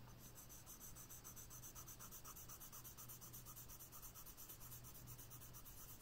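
Faint scratching of a Faber-Castell Polychromos colored pencil across drawing paper in quick, even back-and-forth shading strokes, filling in an area of color.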